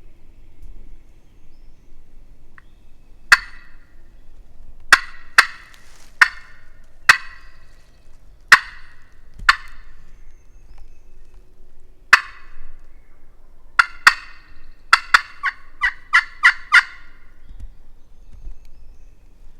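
Turkey call worked close by, sounding loud, sharp clucks spaced a second or more apart, then a quick run of about eight notes (cutting) near the end, to make a gobbler answer.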